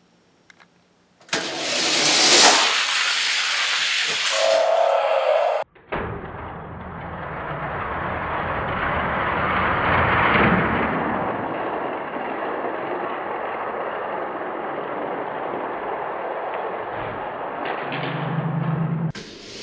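Car engine sound effect over a toy-car race: a loud burst of engine noise starting about a second in, cut off sharply after a few seconds, then a long steady engine-like rush that eases off near the end, with a brief low hum just before it stops.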